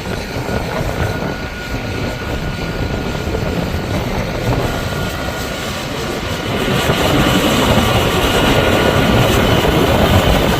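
A vehicle engine running steadily, growing louder about two-thirds of the way through.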